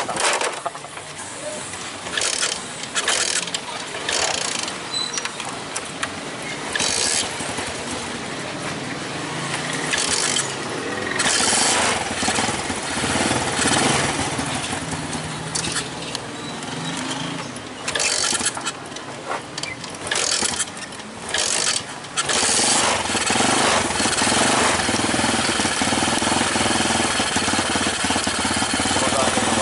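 Rusi Gala 125 scooter's 125 cc engine running, mixed with intermittent knocks and rustles of handling. About three-quarters of the way through it becomes louder and steadier.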